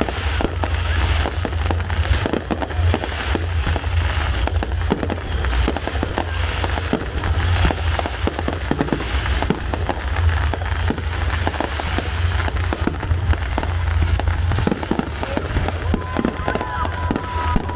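Aerial fireworks display: shells bursting in a rapid, continuous run of overlapping bangs and crackles over a deep, steady rumble.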